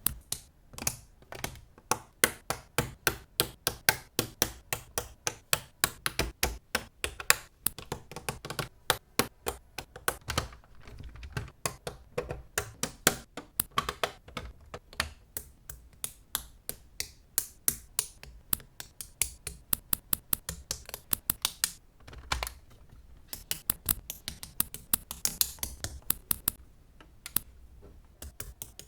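Plastic Technic-style building pieces clicking and snapping as they are handled and pressed together: a rapid, uneven run of sharp clicks, several a second.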